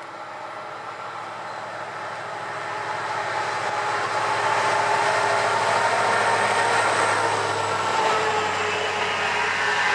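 A string of coupled SNCF diesel locomotives, a BB 67000 in the lead, approaching and passing close by on the rails, growing louder over the first five seconds and then staying loud, with steady humming tones in the running noise.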